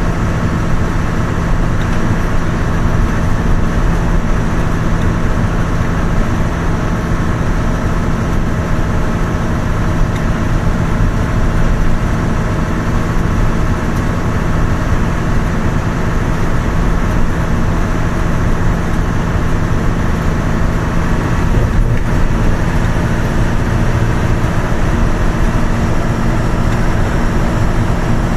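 Steady engine and tyre noise of a road vehicle cruising at speed, heard from inside: a low, even hum and road rumble throughout.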